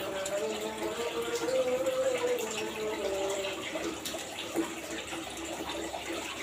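Aquarium water running and trickling steadily, with a wavering tone underneath.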